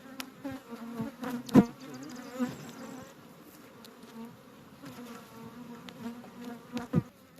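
Honeybees buzzing close by, many wingbeat tones wavering together, broken by a few sharp knocks, the loudest about a second and a half in and another near the end.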